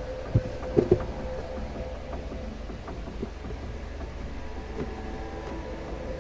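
Cardboard figure box picked up off a table and handled, with three soft knocks in the first second as it is gripped and lifted, then quieter rustling, over a steady low background hum.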